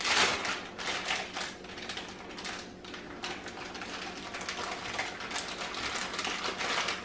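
Plastic wrapper of an individually wrapped cheese slice crinkling as it is peeled open, a fast irregular run of small crackles.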